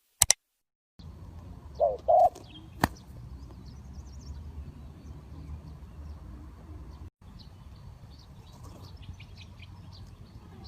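Two short, low coo notes from a spotted dove about two seconds in, over faint chirping of small birds, with a sharp click just before and another just after.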